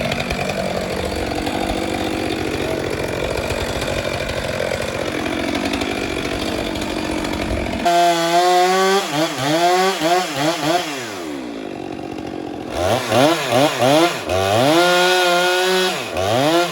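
Gasoline chainsaw cutting into pine wood under load for about eight seconds, then pulled out of the cut and revved up and down with the throttle, dropping to idle for about a second before revving again.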